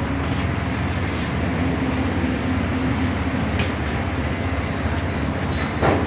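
Steady machine rumble with a low, engine-like hum, and one short knock near the end.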